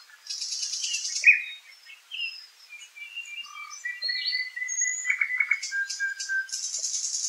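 Several wild songbirds singing over one another in woodland: clear whistled notes and short phrases, with a dry, buzzy high trill about a second long heard twice, near the start and near the end.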